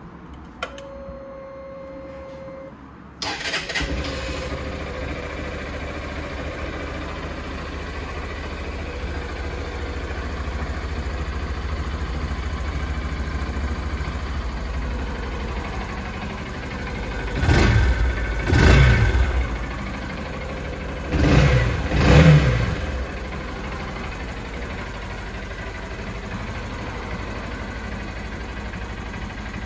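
Honda CB125F's 125cc single-cylinder four-stroke engine started on the button after a steady whine of about two seconds, then idling. It is blipped twice in two pairs about 17 and 21 seconds in, the revs rising and falling quickly each time, before it settles back to an even idle.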